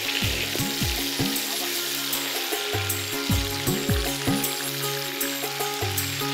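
Whole stingray sizzling as it fries in hot oil on a large flat pan. Over it runs background music with steady tones and a repeated pattern of falling bass notes, which are the loudest part.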